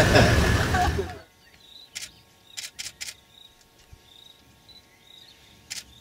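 A vehicle engine idling under loud noise cuts off abruptly about a second in. It leaves a quiet background with faint high-pitched chirping and a few sharp clicks.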